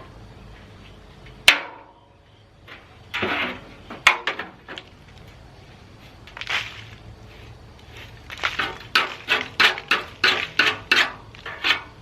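Metal clanks and knocks from hands working on an old welder's high-frequency unit: one sharp clank about a second and a half in, a few knocks and scrapes a couple of seconds later, then a quick run of about a dozen knocks, two or three a second, near the end.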